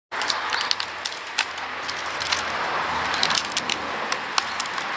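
Dry stick cracking and clicking as two dogs chew and tug on it between their teeth, many sharp irregular snaps over a steady hiss.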